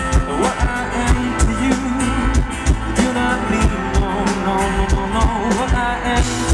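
Live band performance of a pop-rock ballad: acoustic guitar strumming over a steady drum-kit beat, with a sung melody line.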